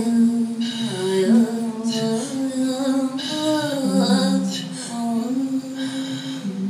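Sami joik and Inuit throat singing performed together by two female voices: a wavering, bending melodic line over low tones held steady beneath, with breathy passages coming and going.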